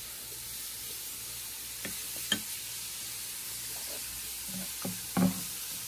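A few light clicks and taps of a ceramic soup spoon against a bowl, with a louder low knock near the end, over a steady faint hiss.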